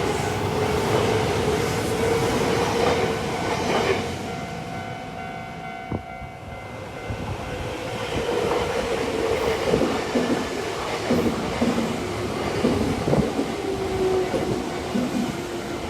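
Nankai Koya Line electric train running over the level crossing, wheels clattering on the rails with steady tones over the noise. It quietens for a few seconds about four seconds in, then grows loud again with more clatter.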